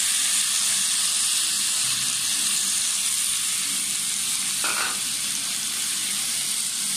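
Diced vegetables (potato, carrot, capsicum and onion) sizzling in hot oil in a pan: a steady frying hiss.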